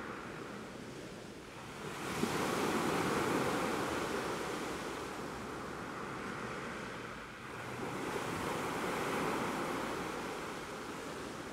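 Sea surf washing over a rocky reef, a steady rush that swells twice as waves come in and then eases off.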